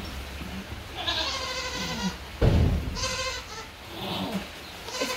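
Doe goat in labour bleating loudly while straining, two long wavering cries about two seconds apart, with a dull thump between them.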